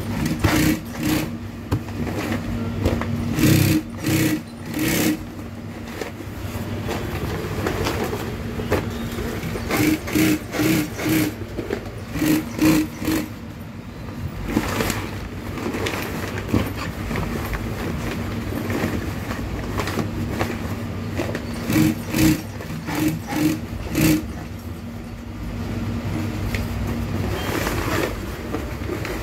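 A MADI industrial sewing machine stitches heavy canopy fabric in several short bursts of rapid needle strokes. Its motor hums steadily between the runs.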